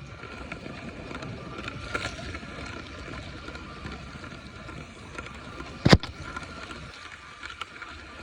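Lego train's small electric motor running with a steady whine and rattle, with one sharp click about six seconds in.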